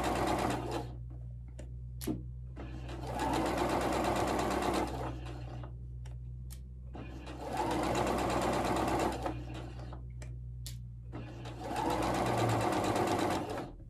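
Pfaff sewing machine running a straight-stitch seam in four short runs of about two seconds each, stopping between runs while pins are pulled from the fabric ahead of the needle; small clicks in the pauses.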